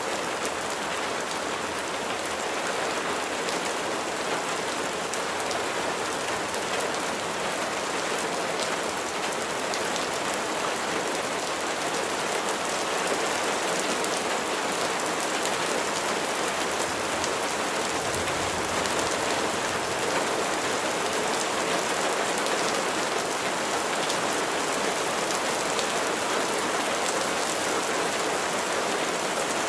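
Steady rain falling on a surface, an even hiss with many small drop patters.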